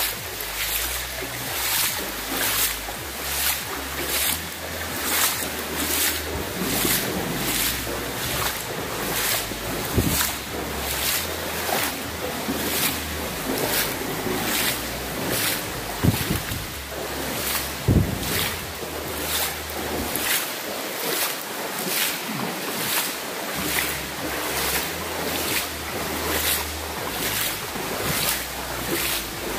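Footsteps wading through shallow standing water on a tunnel floor, a steady rhythm of splashes about two a second, with a few louder thumps.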